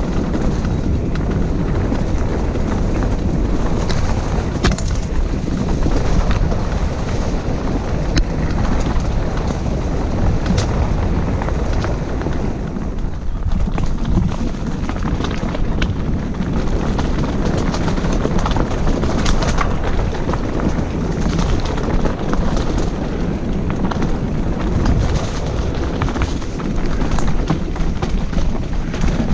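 Wind buffeting the microphone of a bike-mounted camera, with tyres crunching over loose stones and the bike rattling on a rough, rocky trail descent. Frequent sharp clicks and knocks from the stones and bike parts sit over the steady rush.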